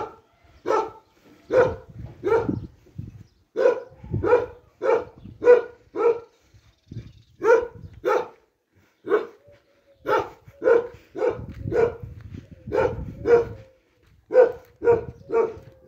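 A dog barking repeatedly: about twenty short, single barks, coming one or two a second with brief pauses between runs.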